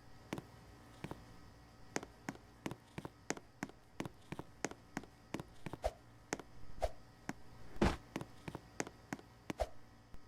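A series of irregular clicks and taps, a few to several a second, over a faint steady low hum.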